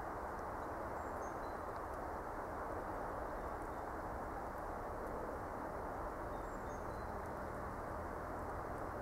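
A steady low background noise throughout, with a few faint, short, high bird chirps, about a second in and again near the end.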